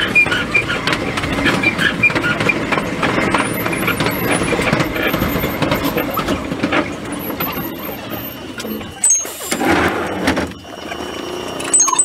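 Electric railcar running along the track, its sound sped up four times: continuous wheel-and-motor running noise with a high wheel squeal in the first seconds. About three-quarters of the way through comes a sudden loud burst, and a steady high tone joins in near the end.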